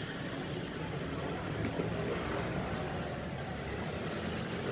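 Steady low background rumble, with a faint click about two seconds in.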